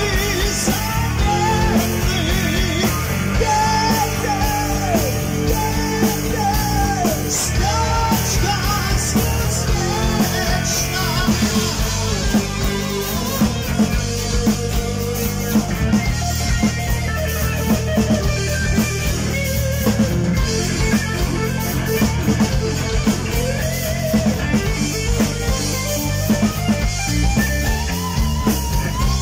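Live rock band playing: distorted electric guitar, bass guitar and a drum kit, with a male vocalist singing.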